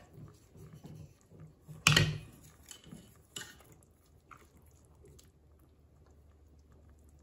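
A few sharp clinks and knocks of kitchenware, the loudest about two seconds in, as a bowl and wooden chopsticks are picked up and the chopsticks poke into a stainless steel pot of braised beef; after about four seconds it turns quiet.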